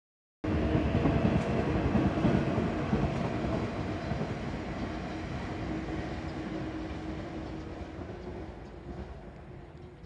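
A steady low rumble with a faint hum in it. It starts about half a second in, loudest at first, and fades slowly away.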